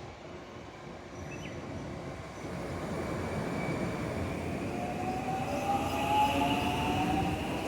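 Electric train approaching and growing louder, with a rumble. From about two-thirds of the way in, a slightly rising whine of several tones comes in over it.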